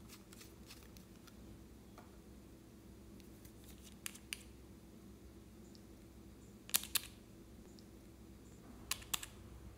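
Small sharp clicks and taps of nail-polish bottles and their caps being handled, mostly in pairs about four, seven and nine seconds in, over a faint steady hum.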